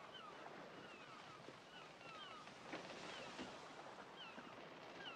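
Faint outdoor ambience: short falling bird chirps, about one or two a second, over a soft hiss like lapping water, with a couple of light knocks near the middle.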